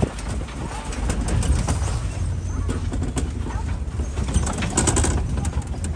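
Safari ride truck driving along a rough track: a steady low engine and road rumble with scattered rattles and knocks from the vehicle.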